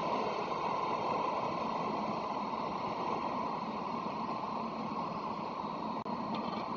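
Steady background hiss and rumble of a railway station, picked up by an outdoor webcam microphone, with no distinct event.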